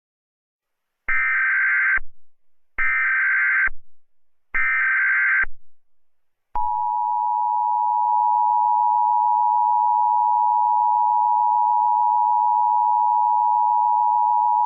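Emergency Alert System alert: three roughly one-second bursts of SAME header data tones, about a second apart. These are followed by the steady two-tone EAS attention signal, which runs about eight seconds.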